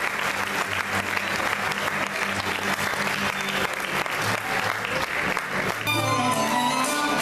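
Audience applauding steadily; about six seconds in, instrumental music starts suddenly over the applause.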